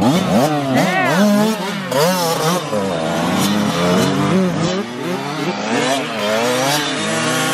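Several small youth dirt bike engines revving up and down over each other as the bikes pull away across the grass, the pitch rising and falling repeatedly.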